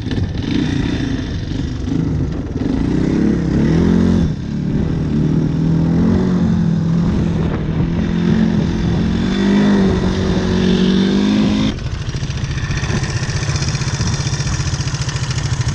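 Yamaha Tri-Moto 225 three-wheeler's single-cylinder four-stroke engine being ridden, its pitch rising and falling with the throttle. About twelve seconds in it gives way to a steady idle heard close to the engine, which has a tick and is running on Marvel Mystery Oil in the crankcase and fuel.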